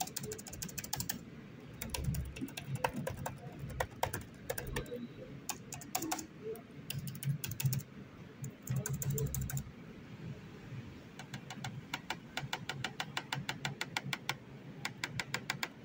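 ASUS X415 laptop's chiclet keyboard being typed on: a busy run of key clicks and space-bar presses. After a short pause, about eleven seconds in, an even series of clicks follows as the touchpad is pressed.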